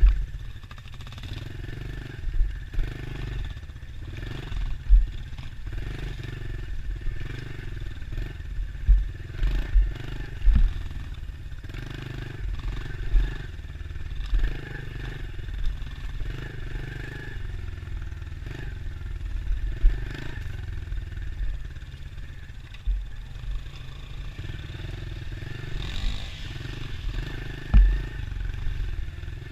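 Dirt bike engine running as the bike rides along a trail, rising and falling with the throttle. Several sharp low thumps are heard along the way.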